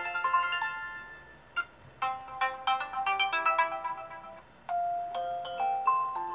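A built-in Nokia Lumia 1020 ringtone playing from the phone's speaker: bright chiming notes in quick melodic phrases, with short pauses between the phrases.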